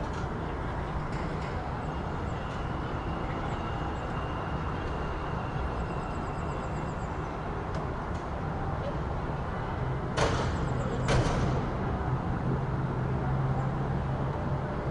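City street ambience with a steady low traffic rumble. Two sharp metallic bangs about ten and eleven seconds in, followed by a steadier low engine hum.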